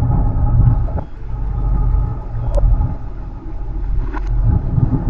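Muffled underwater rumble from a camera submerged in river water, with faint steady hum lines and an occasional click.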